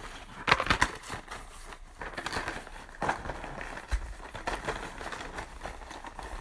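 Small cardboard boxes of sparklers being handled and stacked: scattered light knocks and rustling, with a quick cluster of taps about half a second in.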